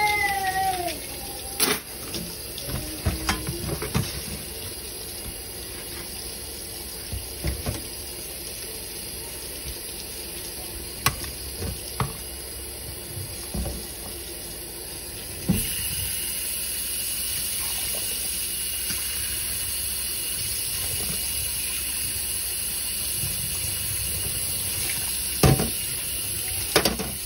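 Kitchen tap running into a stainless steel sink while dishes are rinsed by hand: water splashing off a glass and utensils, with occasional clinks of dishes against the steel. The water becomes louder and steadier about halfway through.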